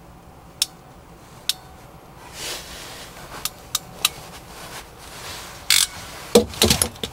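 Ratchet crimping pliers clicking shut in a series of sharp clicks as an insulated crimp terminal is squeezed onto a wire, with a louder clack and a short cluster of knocks and rattles from handling the tool and wire near the end.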